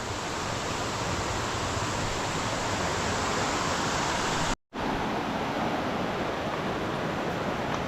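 Steady rush of flowing river water, cutting out completely for a split second a little past halfway.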